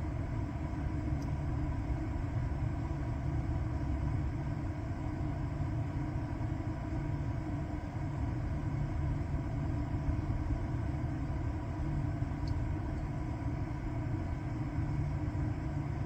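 Steady low rumble with a faint steady hum above it, unchanging throughout, with no distinct events.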